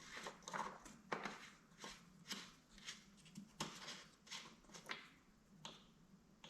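Faint, irregular clicks and scrapes of an oil dipstick being pushed into and drawn out of the Kohler XT675 engine's fill tube to check the oil level after a refill.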